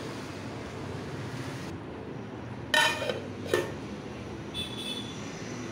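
A metal lid clanks down onto a cooking pot about three seconds in, with a second, lighter clink just after and a brief ring. Under it, a steady low rumble from the pot boiling on the gas burner.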